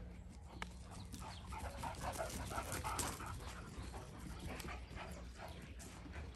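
Dogs vocalizing as they play-fight and chase over a toy, with a cluster of short, choppy calls in the middle.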